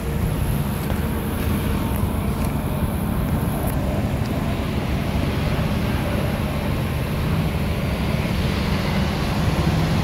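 Steady rumble of traffic and semi-truck diesel engines, with no horn sounding.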